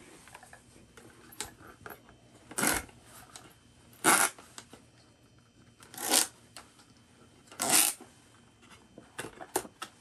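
A full face dive mask and its rubber head straps being handled and pulled on over the head: four short, loud rustles a second or two apart, with light clicks and taps between, most of them near the end.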